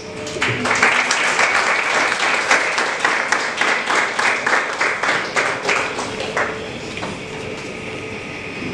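Audience applauding, a dense patter of many hands clapping. It starts about half a second in and dies away after about six and a half seconds, leaving a steady room hum.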